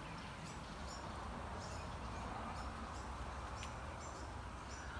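Steady outdoor background noise with scattered faint, high, short bird chirps.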